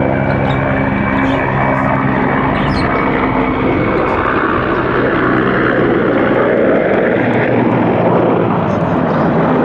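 Combat helicopter flying overhead: a loud, steady rotor and turbine drone that grows fuller in the middle.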